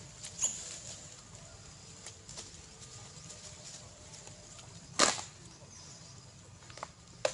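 Long-tailed macaques splashing in shallow pond water at the bank: a few brief splashes, the loudest about five seconds in.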